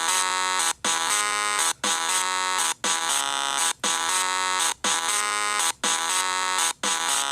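An electronic ringing, alarm-like tone, repeating about once a second with a short break between rings, each ring opening with a quick upward swoop: the sound effect for a zoo train.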